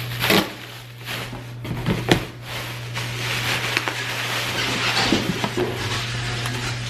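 Unpacking a parcel: plastic and paper packing rustling and crinkling as it is pulled from a cardboard box, with a few knocks of the box being handled in the first two seconds. A steady low hum runs underneath.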